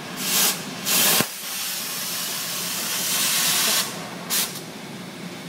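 Oxy-fuel cutting torch hissing in blasts as it blows through the red-hot nut on the strut shaft: two short bursts, then a long steady hiss of a couple of seconds, and a short burst near the end, with a single sharp click early on.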